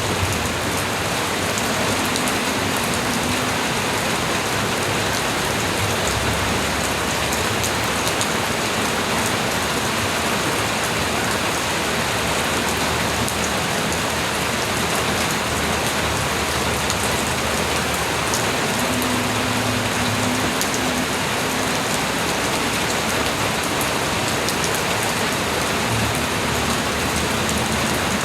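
Light rain falling steadily: an even hiss with a fine patter of drops.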